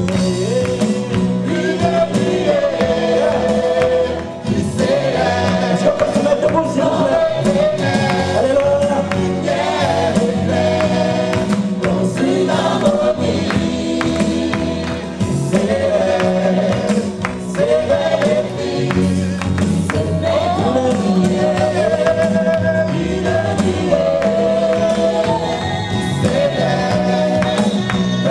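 Live gospel song: a male lead singer with a group of backing singers singing together over a band accompaniment.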